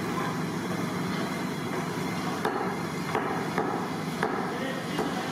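Steady background noise with a run of short, sharp knocks, about two a second, starting about halfway through.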